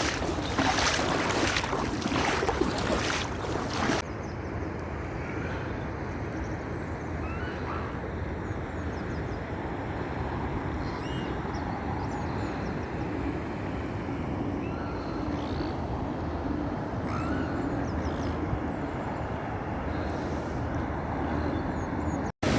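Wind buffeting the microphone for the first few seconds. Then, after an abrupt change, a steady rush of fast-flowing floodwater with a few faint chirps over it.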